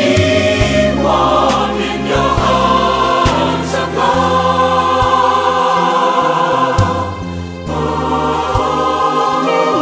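Background music: a choir singing a slow sacred song.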